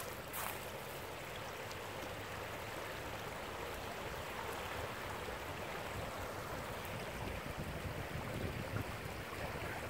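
Swollen, fast-flowing floodwater of a river rushing steadily past the bank, with a couple of sharp clicks near the start.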